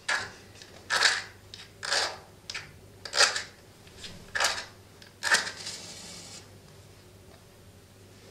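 A match struck against a matchbox about seven times, short scrapes roughly a second apart, the last catching and flaring with a brief hiss as it lights.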